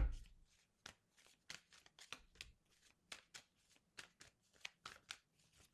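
Tarot cards being shuffled by hand: a run of short, crisp card slaps, three or four a second, after a soft thump right at the start.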